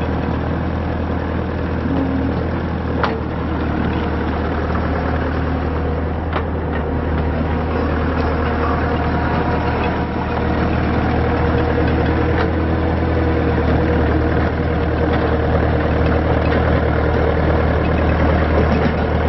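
Diesel engine of a Bobcat T300 track loader running steadily, with a few light clicks.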